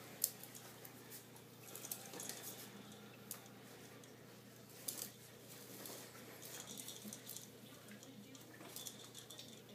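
Faint, scattered light clicks and taps from a plastic baby push walker being pushed across a tile floor, irregular and spread through the whole stretch, over a low steady hum.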